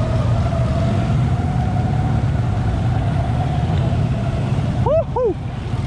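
An ATV engine runs steadily under throttle as the quad wades through deep muddy water, with water sloshing around it. Near the end the engine sound dips briefly and two short rising-and-falling calls are heard.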